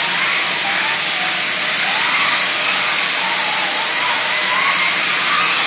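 Vacuum cleaner running steadily, its hose and turbo brush nozzle being drawn over a dog's coat, with a faint whine that wobbles up and down in pitch as the nozzle moves.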